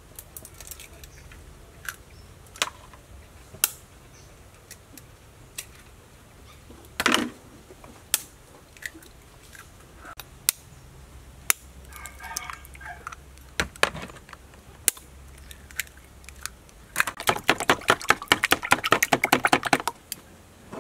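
Eggs cracked one at a time against the edge of a bowl, each a single sharp tap a second or two apart, then about three seconds of rapid clicking near the end as the eggs are beaten in the bowl. A chicken clucks briefly in the middle.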